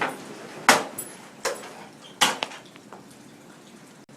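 Nerf foam-dart blasters firing and darts striking, heard as a string of sharp clacks, loudest in the first two and a half seconds.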